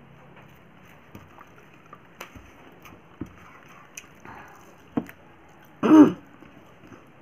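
Quiet eating sounds: faint scattered clicks and taps of eating, about one a second. About six seconds in comes one brief loud voiced sound from the eater, a throat clear.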